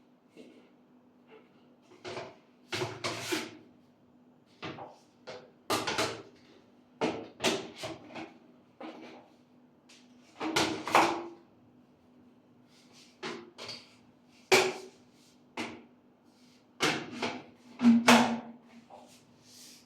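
Irregular knocks and clatters of ventilation duct fittings being handled and set down, about a dozen in a row, the loudest near the end, over a steady low hum.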